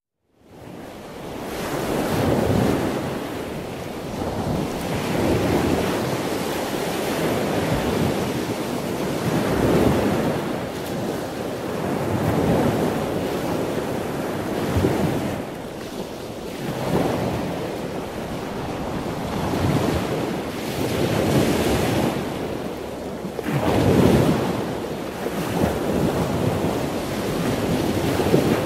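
Ocean surf: waves breaking and washing in, swelling and ebbing about every two to three seconds, over a steady windy hiss. It rises in over the first second or so.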